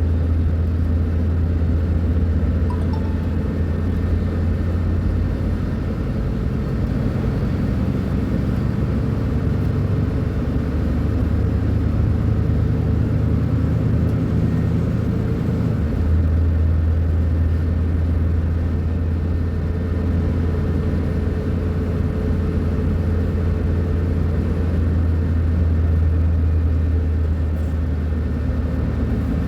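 Diesel engine of a Mercedes-Benz O500U city bus with a Voith automatic gearbox, running with a steady low rumble. From about six seconds in its pitch rises gradually, as under load, then drops back abruptly at about sixteen seconds to the steady low note.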